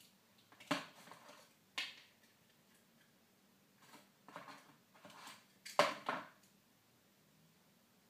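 Eggshells clicking and tapping against plastic bowls as eggs are cracked and the yolks separated by hand: three sharp taps, the loudest about six seconds in, with softer shell handling between.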